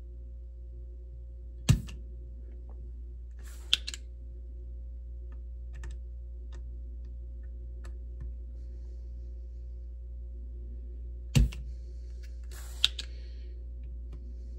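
Yihua 929D-V desoldering iron's spring-loaded plunger clicking as it is cocked and released to suck up melted solder: two pairs of sharp clicks, one pair about two seconds in and one about eleven seconds in, over a low steady hum.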